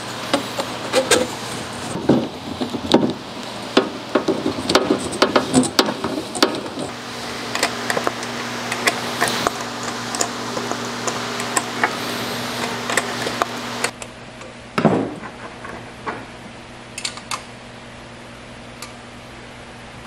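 Clinks, clicks and knocks of metal parts being handled as a flexible metal tube and fittings are put onto a portable diesel heater, over a steady low hum. About two-thirds of the way through the handling stops abruptly, leaving the hum and a few faint clicks.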